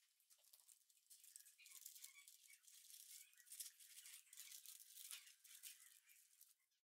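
Baking paper crinkling and rustling faintly as a folded parchment collar is peeled off a thick soufflé pancake, with small crackles throughout; it cuts off suddenly near the end.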